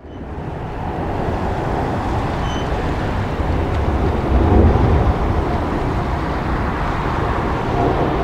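Steady roar of jet airliner engines, a low rumble that swells briefly about four and a half seconds in.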